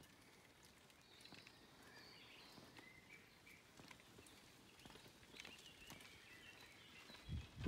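Near silence: faint birdsong of short chirping phrases, over light ticking of bicycle tyres on a dirt track. A low rumble hits the microphone near the end.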